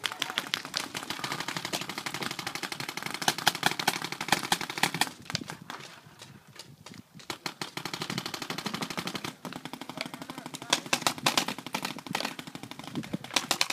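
Paintball markers firing in rapid strings of shots, several players trading fire at once. The firing eases off briefly about five seconds in, then picks up again.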